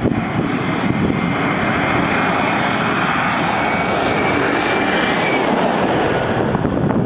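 Jet airliner's engines running loud and steady as it lands, with a high whine that fades a little after halfway.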